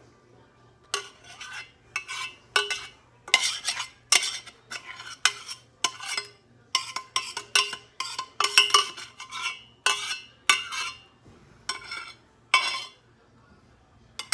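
Metal spoon scraping gravy out of a stainless steel saucepan in short strokes, about two a second, starting about a second in.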